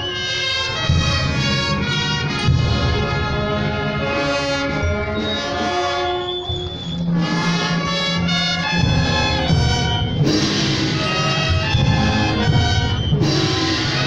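A procession brass band of trumpets and trombones over a low bass line plays a funeral march. There are two bright crashes, about ten seconds in and again near the end.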